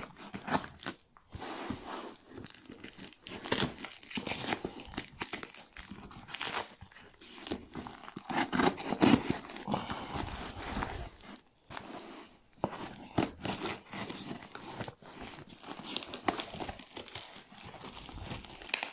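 A cardboard parcel wrapped in clear plastic stretch film being torn and pulled open by hand: irregular tearing and crinkling of film and cardboard.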